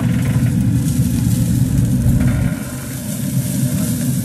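A loud, steady low rumble with a slight dip about two and a half seconds in.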